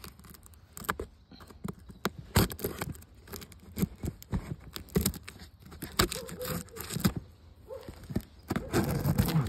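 Packing tape on a cardboard box being slit with a knife and peeled off: a string of sharp, irregular crackles and rips, with a longer tearing stretch near the end.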